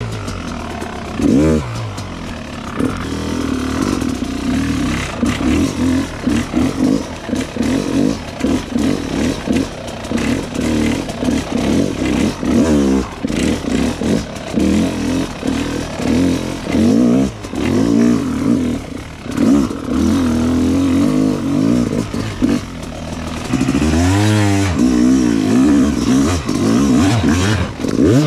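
Yamaha YZ250X two-stroke single-cylinder dirt bike engine lugging at low revs under load, with repeated short throttle blips that rise and fall in pitch.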